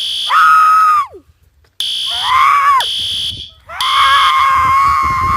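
Short piercing alarm beeps, like a smoke alarm, alternating with three high-pitched held screams that bend down at their ends; the last scream is the longest, about two seconds.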